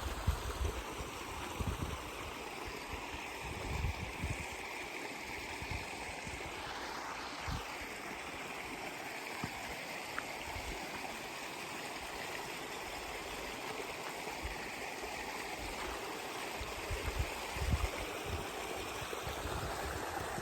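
Mountain stream running, a steady rush of water, with a few low thumps scattered through it.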